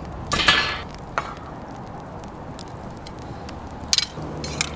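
A round steel grill grate scrapes and clanks into place on a steel fire-pit rim about half a second in, over a wood fire crackling with scattered pops. Near the end come two sharp metal clinks as a small steel bowl is set on the grate.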